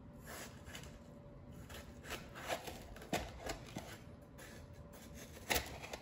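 Kitchen knife cutting through a watermelon on a maple wood cutting board: a scatter of short cutting strokes and light knocks, with the sharpest one near the end.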